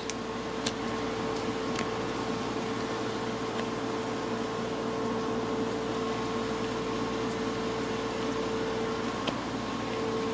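Steady fan-like room hum with a held tone, and a few faint clicks of trading cards being flipped through by hand.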